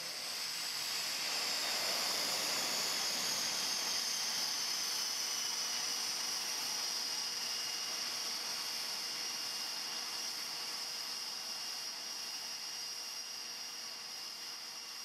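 Aircraft turbine engine at the stand, a steady high-pitched whine over a rushing hiss, with a fainter high tone sinking slightly in pitch over the first few seconds.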